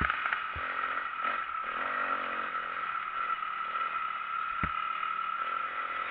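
Motocross bike's engine heard onboard from the rider's camera, running steadily and fairly quietly through a corner, with a single sharp knock about four and a half seconds in.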